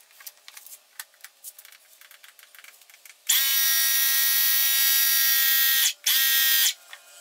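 Portable electric tyre inflator (small air compressor) running with a steady high buzz for about two and a half seconds, stopping briefly, then a second short burst, putting a little air into a mini bike inner tube, about 1 to 2 psi, to seat it in the tyre. Faint handling clicks come before it.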